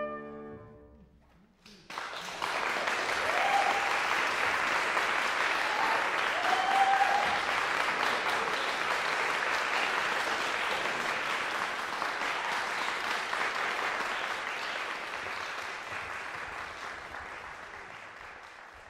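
The last note of the piccolo trumpet and piano rings away, and after a brief hush the audience breaks into applause about two seconds in, with a few voices calling out early on; the clapping runs on evenly and slowly fades near the end.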